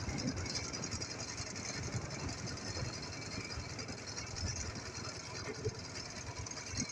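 Ural motorcycle's air-cooled flat-twin engine running, a busy uneven low chugging, on its shakedown after a major overhaul.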